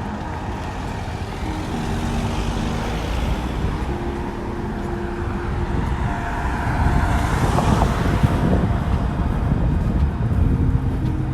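Road traffic: a steady low rumble, with a vehicle passing close by that swells to its loudest about seven to nine seconds in and then eases off.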